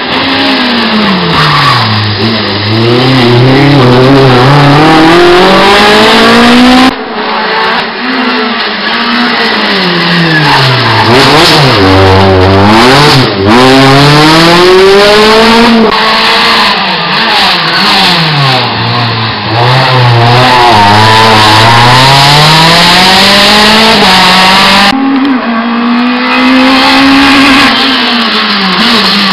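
Small rally hatchbacks' engines, one car after another, dropping in pitch as they slow into a hairpin and then revving up through the gears as they accelerate out. The sound breaks off abruptly several times between cars.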